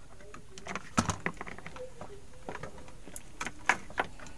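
Scattered plastic clicks and knocks as a hair straightener's power cord and plug are handled for plugging in. The loudest click comes about a second in, with a few more in the last second and a half.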